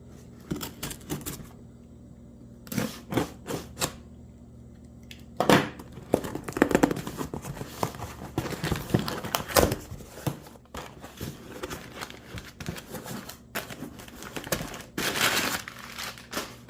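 Packaging being opened and rummaged through by hand: scattered clicks and taps, then stretches of crinkling and rustling, with a louder rustle near the end.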